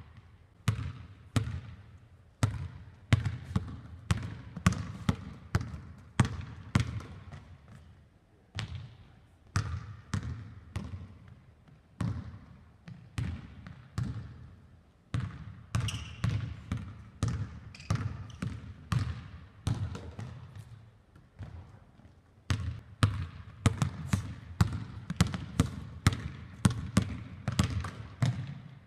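Basketball dribbled hard on a hardwood gym floor: runs of sharp bounces about two a second, with short breaks between runs.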